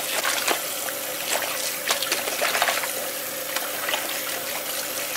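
Kitchen tap running into a plastic bowl of water while hands rub and swish salted fish pieces under the stream, with small splashes throughout.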